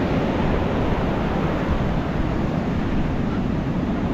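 Ocean surf breaking on a beach: a steady rushing noise with a deep rumble and no distinct crashes.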